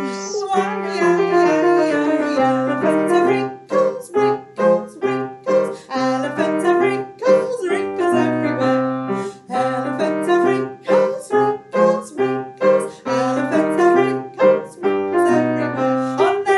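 Piano music for a children's action song, played to a slow, steady beat.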